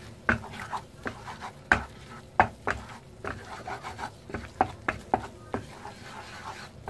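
Wooden spatula stirring and scraping a flour-and-margarine roux in a nonstick frying pan, making irregular knocks and scrapes against the pan, with the loudest strokes about two seconds in.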